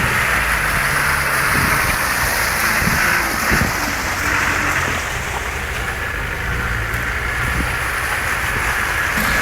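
Off-road 4x4's engine running steadily at low revs under a continuous rushing hiss, with a few light knocks.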